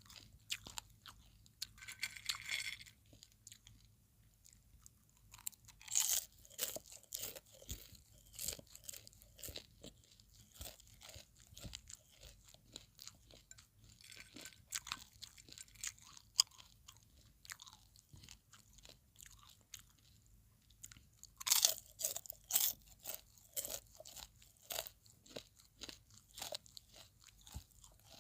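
Popcorn being chewed close to the microphone: crisp crunching in bouts, with two louder spells of chewing, one about six seconds in and one a little past the twenty-second mark.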